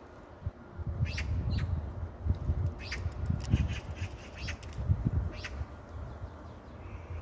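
Magpie giving short, harsh calls, about eight of them at uneven intervals with a quick cluster in the middle, over a low uneven rumble.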